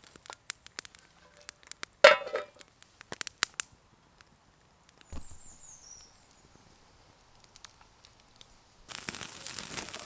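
Wood fire crackling in a small box stove, with sharp pops over the first few seconds and a louder knock about two seconds in. From about nine seconds, a steady sizzle of meat searing on a wire grill over the fire.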